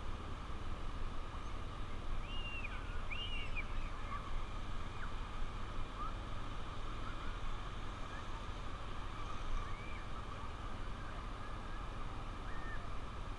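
Steady wind and riding noise from a Honda Trail 125 motorcycle. Several short bird calls that rise and fall come over it a few seconds in and again later on.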